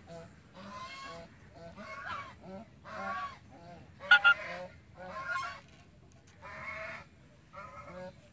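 Baby blue-and-gold macaw giving a string of short, harsh calls, about one a second, with one louder, sharper call about four seconds in.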